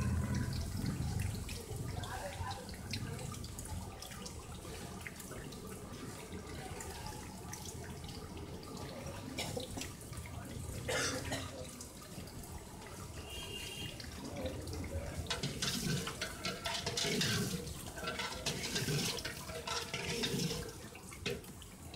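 Liquid sloshing and churning in a large aluminium pot as a long metal ladle stirs it, with scattered light clicks.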